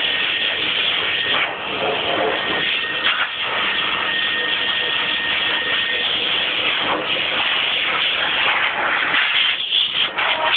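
Pet blaster dryer, a high-velocity dog dryer, blowing air steadily and loudly, with a faint steady whine through the first half.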